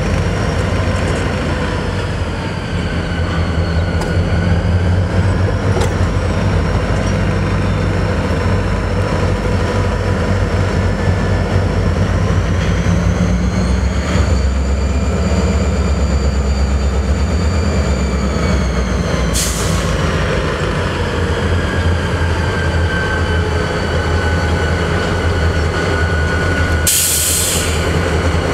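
Diesel-electric freight locomotive pulling a train past at slow speed: a deep, steady engine rumble with a high, wavering squeal of wheels in the yard trackwork. A short hiss of air comes near the end.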